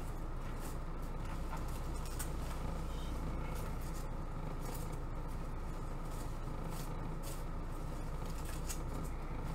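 Foam packing peanuts and bubble wrap rustling and crackling in short bursts as hands dig through a cardboard box, over a steady low hum.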